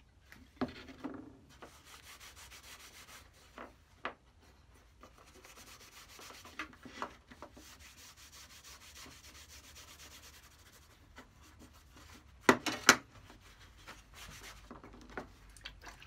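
A cloth pad rubbing Danish oil into the wooden handle of a sliding bevel gauge: a soft, steady scratchy rubbing. Scattered light knocks run through it, and two sharp knocks in quick succession about two-thirds of the way through are the loudest sounds.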